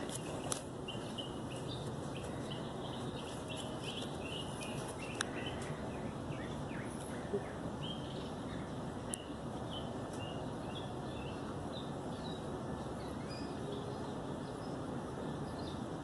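Songbirds chirping: many short, high chirps scattered throughout over a steady background hiss, with a few faint clicks.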